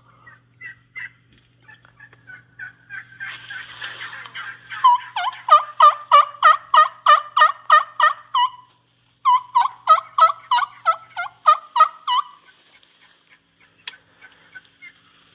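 Turkey yelping: a few soft notes, then a long run of loud yelps at about three a second, broken by a short pause near the middle.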